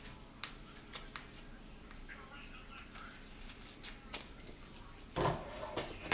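Small kitchen knife clicking and scraping on raw potatoes being cut and peeled by hand, in scattered short ticks, with a louder knock about five seconds in.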